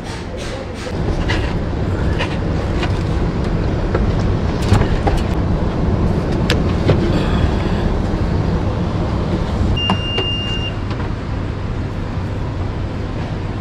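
Clicks and knocks of a bicycle being handled and lifted into the back of a minivan, over a steady low rumble of vehicles. A short, steady high beep sounds about ten seconds in.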